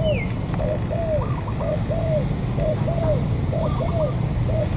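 Spotted dove cooing: a steady run of low, arched coos, about two a second, over a steady low rumble.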